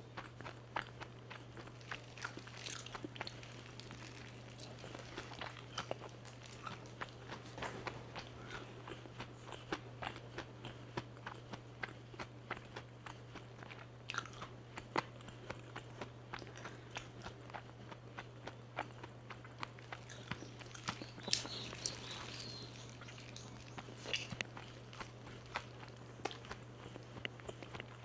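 Close-miked biting and chewing of crispy fried chicken, with many irregular sharp crunches of the coating, loudest about three quarters of the way through. A steady low hum sits underneath.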